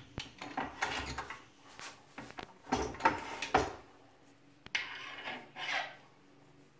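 A wood lathe being set up by hand: irregular scraping and knocking of metal lathe parts and a wooden branch blank as the tailstock is moved and the blank, with a spur drive center in it, is fitted into the headstock. The loudest scrapes come about three seconds in, with a sharp click shortly before five seconds.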